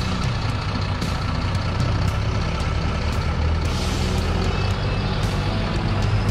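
Heavy farm machinery's engine running steadily at a constant pitch, with occasional sharp clicks and rattles over it.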